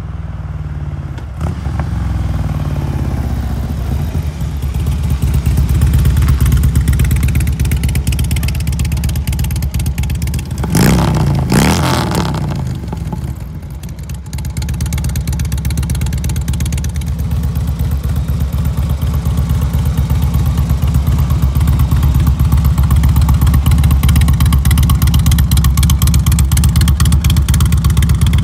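2006 Harley-Davidson Electra Glide's V-twin running through Shark Road 4-inch slip-on mufflers. It grows louder as it approaches and is loudest a little over ten seconds in, with a rise and fall in pitch. It then runs steadily close by, settling toward idle.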